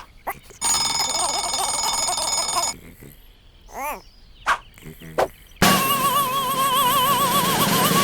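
Cartoon soundtrack of music and sound effects: a steady held chord for about two seconds, then a few short squeaky chirps, then a loud warbling tone from about five and a half seconds in.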